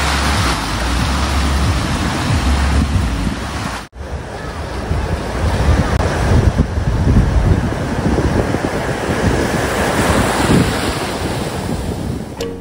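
Ocean surf washing onto a beach, with wind buffeting the microphone as a heavy low rumble. The sound breaks off for an instant about four seconds in.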